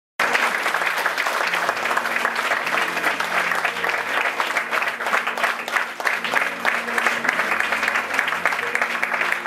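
Theatre audience applauding: a dense, steady clapping of many hands.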